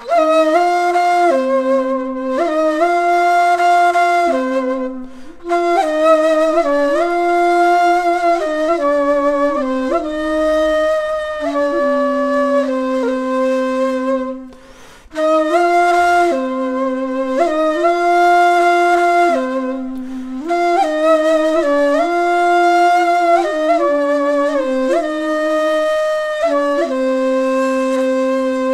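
Turkish ney, the end-blown cane flute, playing a slow melody of long held notes with vibrato. The phrases break for short pauses about 5 and 14 seconds in.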